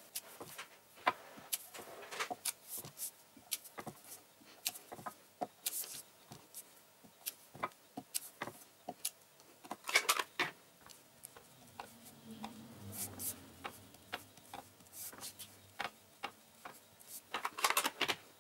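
Hand stamping: a clear acrylic stamp block tapped on an ink pad and pressed onto small cardstock squares, with the paper pieces handled in between. It gives a run of light, irregular taps and clicks, the loudest about ten seconds in.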